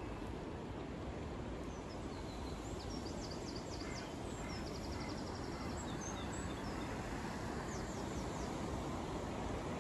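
Outdoor city ambience: a steady low background rumble, with small birds chirping high-pitched notes from about two seconds in, a fast trill about halfway through, and a few more chirps near the end.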